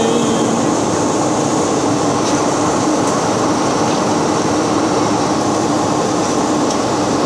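Steady cabin noise of an airliner in flight: the engines and the rush of air, even and unbroken, with a low steady hum under it.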